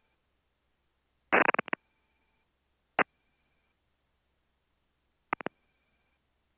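Near silence broken by three short bursts: a quick cluster of pulses about a second and a half in, a single sharp click about three seconds in, and three rapid clicks near the end.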